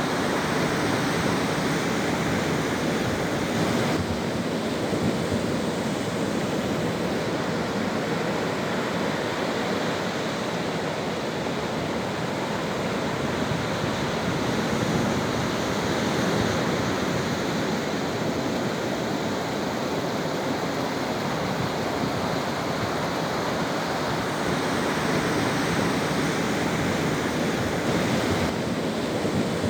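Sea surf washing in a continuous rush, swelling and easing slightly in loudness.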